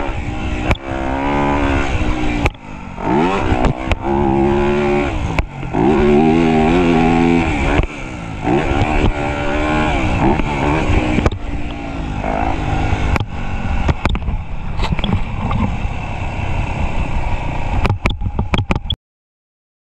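Dirt bike engine revving up and dropping off again and again as it is ridden round a motocross track, with scattered sharp knocks and clatter from the bike. The sound cuts off suddenly near the end.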